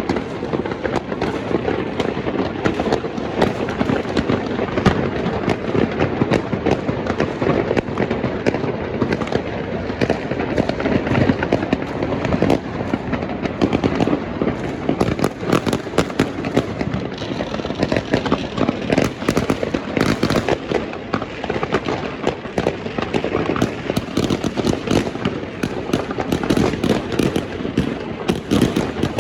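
Dense, continuous barrage of fireworks and firecrackers exploding, many bangs overlapping with no let-up.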